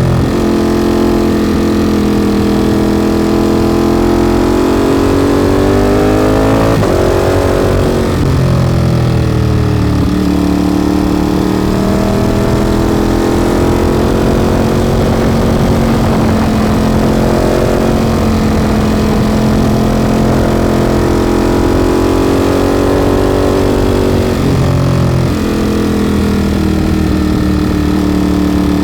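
Ducati motorcycle with a Termignoni exhaust under way, its engine note climbing and falling as it accelerates and eases off. There are sudden drops in pitch at gear changes about seven to ten seconds in and again near twenty-five seconds.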